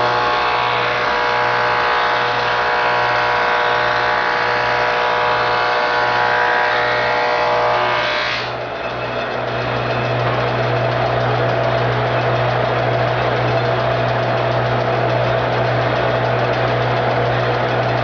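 Belt-driven 1912 Crescent 18-inch planer running at speed, with a clicking from the clips on its flat drive belt. For the first eight seconds or so a 12-inch-wide maple board is being planed, adding a high, many-toned whine from the cutting. The whine stops suddenly about eight and a half seconds in as the cut ends, leaving the machine running empty.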